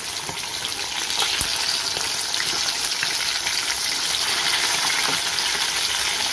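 Masala-coated fish steaks sizzling and crackling steadily in hot oil in an aluminium kadai, with a metal spatula scraping and tapping as the pieces are turned.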